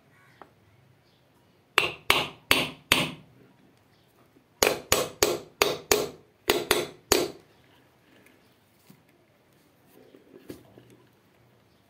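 Hammer tapping on metal fan parts: four quick strikes, then after a short pause eight more in a steady run, each with a brief ring, followed by a few light clicks.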